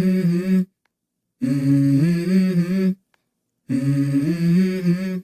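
A low humming voice repeating the same short phrase three times, each rising from a lower to a higher note, with dead silence between the phrases.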